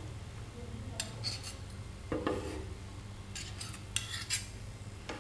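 Kitchen knife blade scraping and tapping on a wooden tabletop as finely chopped coriander root is gathered up: a few short, quiet strokes spread out with pauses between.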